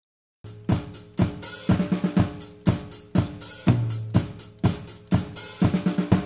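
Recorded drum kit playing a steady beat, kick, snare and cymbals hitting about twice a second, starting abruptly about half a second in and cut off sharply at the end, as an audio example played back for a mixing lesson.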